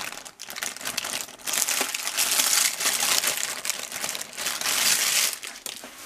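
Aluminium baking foil crinkling and crackling as it is bent and tipped to pour the leftover sauce over a roast chicken piece; loudest in the middle, easing off near the end.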